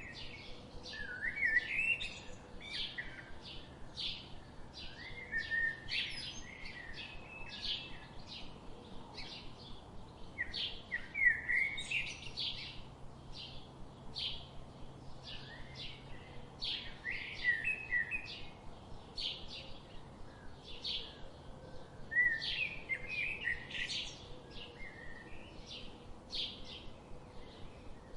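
Songbirds chirping and singing together in quick, overlapping short notes, with a lower warbling phrase returning every five or six seconds.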